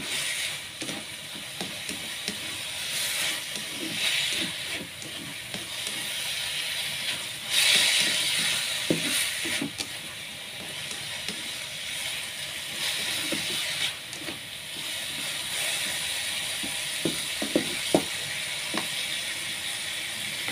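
Sliced bitter melon stir-frying in a pan: a steady sizzle, with a spatula scraping and knocking against the pan as it is stirred. The sizzle swells louder about eight seconds in.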